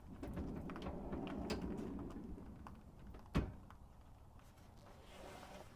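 Large heavy-duty pull-out storage drawer in an RV's outside compartment rumbling as it rolls on its slides, then a single sharp knock about three and a half seconds in.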